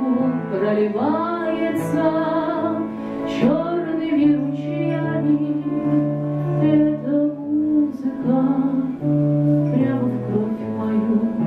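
A woman singing a slow Russian song to her own acoustic guitar, drawing out the word "проливается" near the start, with the instrument carrying on under long held notes.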